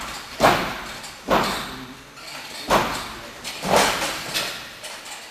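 A series of about five sharp thuds, roughly one a second, each trailing off in the hall's reverberation: wrestlers' blows and stomps landing in the corner of a boxing ring.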